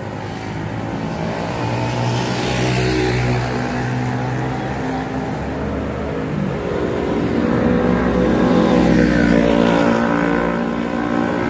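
Motor vehicles passing close by on a road, their engine drone growing louder twice, first about two seconds in and again from about seven seconds.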